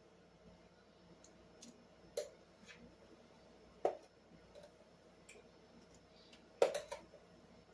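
A few scattered light knocks and clicks of kitchen utensils and containers as brown sugar is measured out: three clearer knocks, the loudest near the end, with fainter ticks between.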